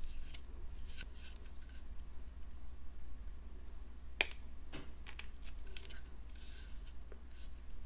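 Wire cutters snipping 22-gauge craft wire, with one sharp snip about four seconds in, among lighter clicks and rustling as the wire is pulled off its spool and run through the fingers.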